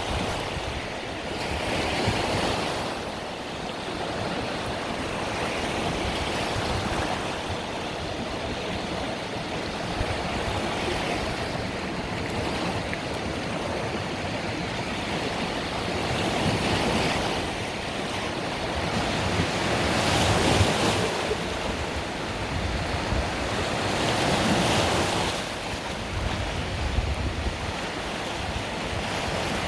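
Mediterranean waves breaking and washing on the shore, a swell of surf every few seconds over a steady wash, with some wind buffeting the microphone.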